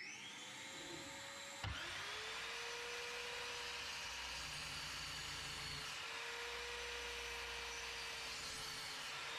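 Electric router spinning up and running with a steady high whine. About a second and a half in, a sharp knock, after which it runs on slightly lower in pitch and louder.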